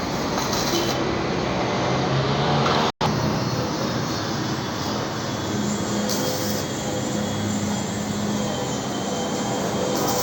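Steady, dense workshop machine noise, cut off completely for a split second about three seconds in.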